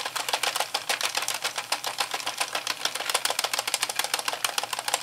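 Sentro 22-needle plastic circular knitting machine being hand-cranked: a steady, rapid run of plastic clicks as the needles are driven around the ring knitting a row.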